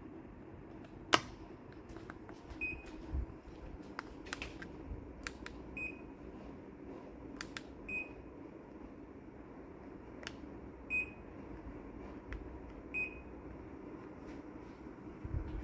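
Daikin FTKV35NVM4 split air conditioner's indoor unit giving short high beeps, five in all and a few seconds apart: the unit acknowledging remote-control commands. Sharp clicks come in between, the loudest about a second in, over a steady low hum.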